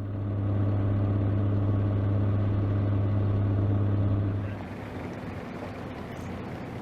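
A vehicle engine runs with a steady, even hum. About four and a half seconds in it drops away to a quieter, even rumble.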